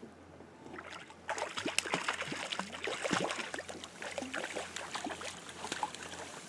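Water splashing irregularly as a hooked fish thrashes at the surface beside a boat and is brought to a landing net, starting about a second in.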